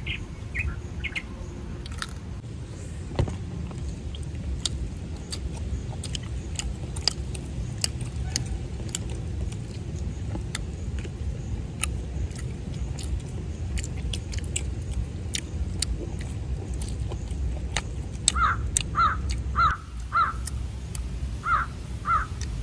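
A crow cawing in two runs of quick repeated calls near the end, over a steady low rumble and scattered faint clicks and smacks from people eating with their hands.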